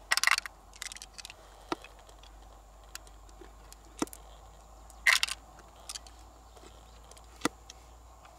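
Pearls clicking and clattering as they are dropped into a small plastic bowl of pearls: a short clattering burst at the start and another about five seconds in, with scattered single clicks in between.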